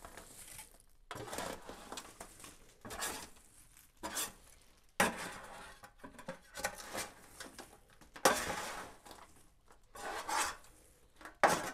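Spatula scraping and knocking against the inside of a large metal pan as a chocolate-coated cereal and pretzel mix is scraped out and slides onto wax paper. Irregular scrapes and clanks, with several sharp knocks a second or more apart.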